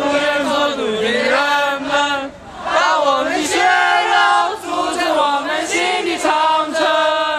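A crowd singing a song together in unison, many voices holding notes through sung phrases with a short break between them.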